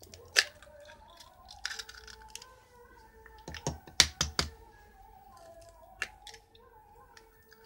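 Eggs being cracked on the rim of a glass bowl: sharp taps and clicks of shell on glass, the loudest a cluster about four seconds in and another tap about six seconds in as the second egg is cracked.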